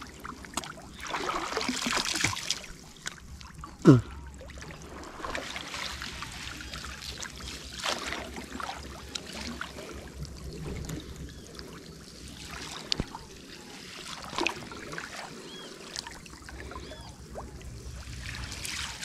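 Water trickling and moving, with scattered small knocks and clicks, and one short loud sound sliding down in pitch about four seconds in.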